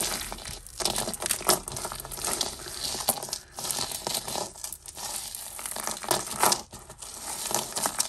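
Hands rummaging through and untangling a pile of costume jewellery: rustling and crinkling with a steady patter of small clicks from beads and chains knocking together.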